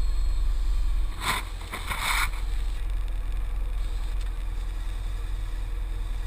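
Polaris Sportsman 500 ATV running under way, a steady low rumble, with two short bursts of rushing noise about one and two seconds in.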